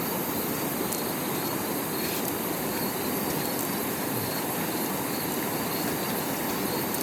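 Steady rush of flowing river water, even and unbroken, with insects chirring faintly above it.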